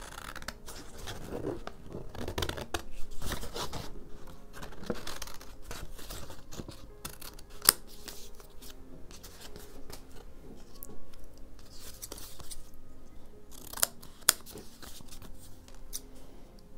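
Scissors cutting watercolour-painted paper in irregular snips, with paper rustling as the pieces are handled and a few sharp clicks.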